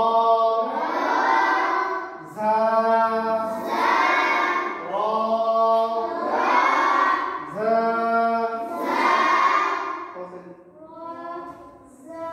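A class of children reciting together in unison in a drawn-out, sing-song chant, as in a maktab Quran-reading drill: about four long phrases with short breaks, growing softer near the end.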